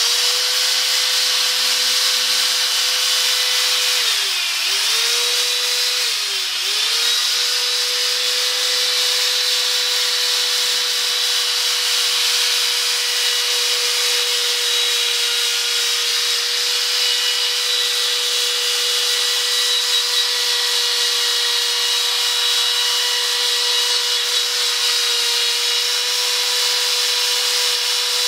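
Corded electric drill spinning a P500 sandpaper disc against a headlight lens, dry-sanding off the yellowed layer: a steady motor whine with a scratchy sanding hiss. The whine dips in pitch briefly twice, about four and a half and six and a half seconds in.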